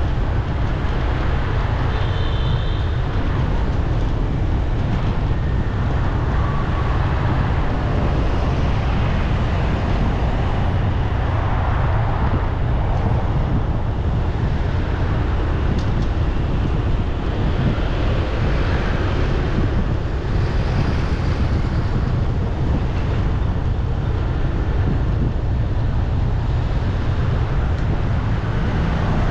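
Steady city street traffic noise, with wind rumbling on the microphone throughout.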